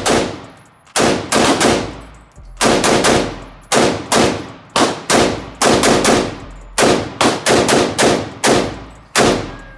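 Rapid semi-automatic gunfire at a target: about twenty shots at two to three a second, each ringing off briefly, with a short pause about two seconds in.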